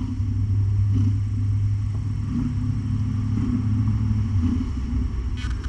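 Low, steady engine rumble from a food truck outside, dropping off about four and a half seconds in.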